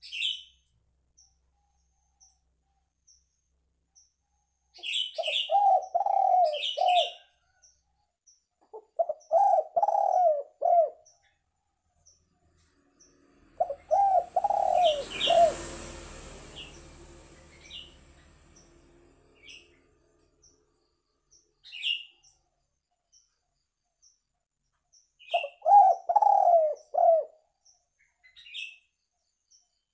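Spotted dove cooing in four phrases of several rolling notes each, with short high chirps from a small bird in between and a brief rushing noise near the middle.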